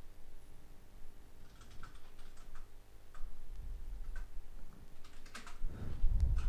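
Irregular small clicks and taps of tools and tiny earbud parts being handled during AirPods reassembly, with a louder low bump of handling near the end.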